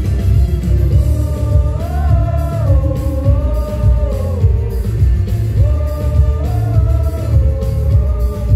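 Live band music: electric guitar over a heavy bass backing, with a sung melody in two long, gliding phrases.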